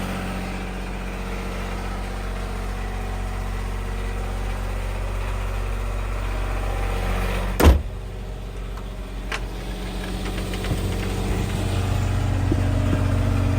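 Westerbeke diesel generator running steadily at idle, warming up after a start. A single sharp knock sounds about halfway through, after which the running sound is a little quieter for a few seconds.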